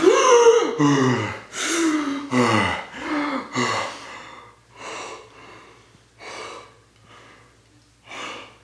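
A young man gasps loudly, then pants hard, each breath sliding down in pitch. The breaths slow and grow quieter, ending in a few soft breaths more than a second apart.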